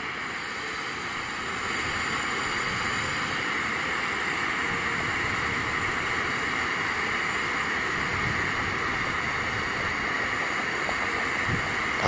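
Lion 933 brass kerosene pressure burner burning at full heat with a steady, tremendous rushing sound under a pot of boiling udon, stepping up slightly about a second and a half in.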